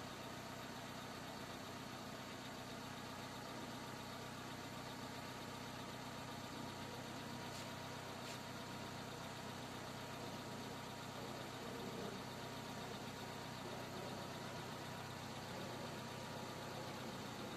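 A car engine idling steadily, with a faint steady high tone running alongside it.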